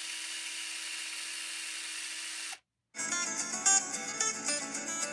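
Electric power drill spinning up with a short rising whine, then running steadily before cutting off suddenly about two and a half seconds in. Guitar music then starts.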